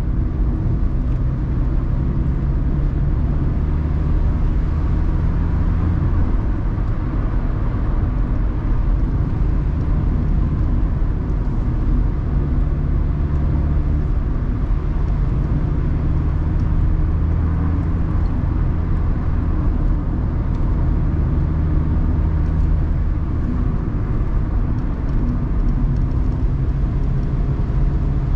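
Mazda ND Roadster (MX-5) driven with the top down, heard from the cabin: its four-cylinder engine running steadily under tyre and wind noise. The engine note shifts a few times as road speed changes.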